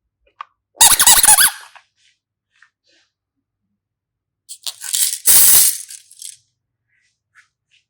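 Slime being squeezed and handled: two short bursts of squelching and squeaking, about a second in and again around five seconds in.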